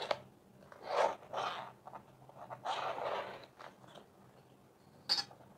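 Ballpoint pen scratching along a steel ruler as a line is marked on the bag: a few short strokes, with a brief sharp sound near the end.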